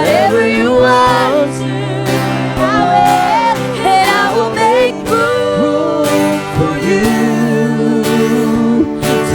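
Live worship music: a voice sings a sliding, held melody over steady sustained chords with guitar.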